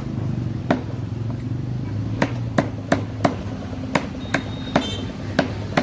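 Cleaver chopping chicken on a chopping block: about a dozen sharp chops at an uneven pace, some in quick pairs.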